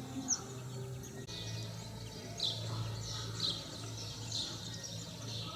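A small songbird chirping repeatedly, short high calls about once a second, over a steady low hum.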